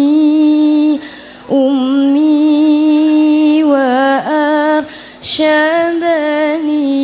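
Girls' voices chanting a nadhom in unison, holding long notes with melodic turns, with two short breaths, about a second in and around five seconds in.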